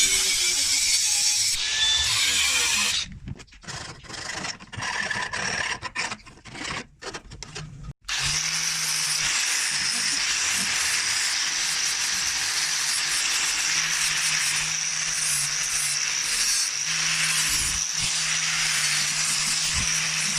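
Workshop tool noise from work on the grinder stand. For the first few seconds it is a dense noise, then it comes in short choppy stretches broken by sudden gaps, and from about eight seconds in it settles into a steady grinding or rubbing noise over a low hum.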